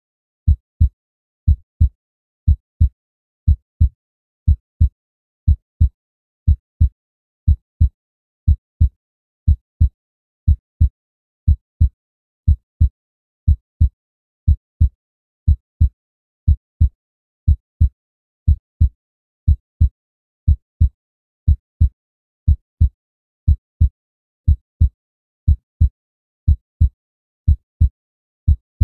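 Human heartbeat: a steady lub-dub, two low thumps in quick succession repeating about once a second, roughly 60 beats a minute.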